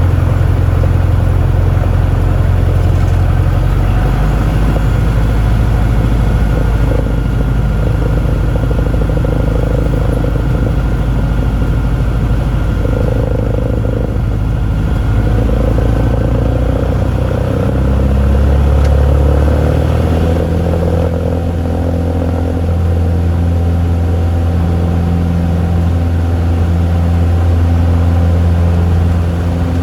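Cessna 150's Continental O-200 four-cylinder engine and propeller running at takeoff power, a loud, steady drone whose low tone shifts about eighteen seconds in.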